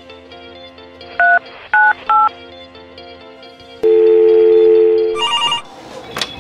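Three short keypad tones as a number is dialed on a phone, then a loud steady two-tone telephone tone for about a second and a half, then a brief electronic phone ring, over soft background music.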